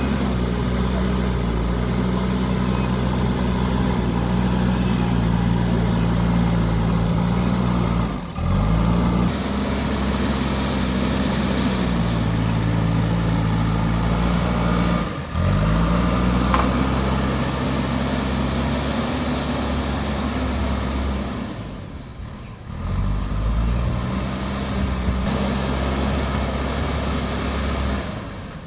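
JCB backhoe loader's diesel engine running and working, its pitch rising and falling as the load changes. The sound drops out sharply three times, and the engine comes back each time.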